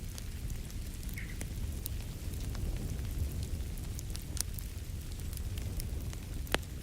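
Wood fire crackling in a fireplace: scattered sharp pops and snaps over a steady low rumble, with one louder pop near the end.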